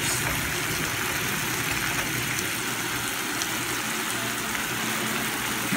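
Eggplant pieces sizzling in hot oil in a frying pan: a steady, even hiss, with a faint low hum underneath.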